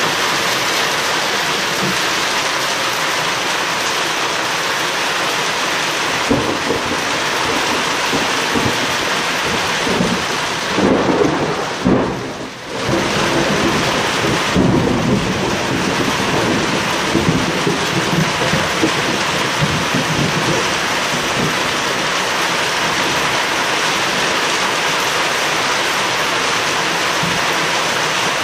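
Heavy rain pouring steadily, with thunder rumbling and crackling through the middle stretch, loudest about ten to thirteen seconds in.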